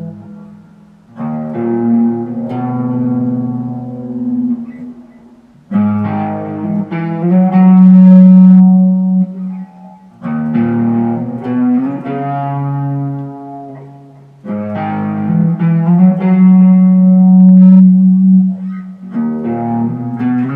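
Ambient guitar music played through heavy delay, reverb and a phaser. Sustained chords swell in about every four to five seconds and fade away between them.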